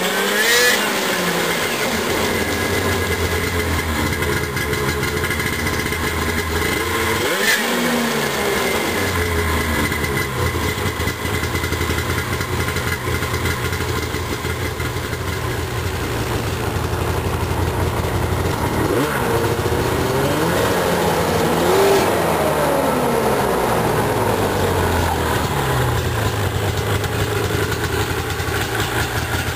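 Arctic Cat Crossfire 8 snowmobile's two-stroke twin with a Speedwerx aftermarket pipe, running just after its first start following engine work. It idles and is revved in short blips: once near the start, once about seven seconds in, and twice around twenty seconds in.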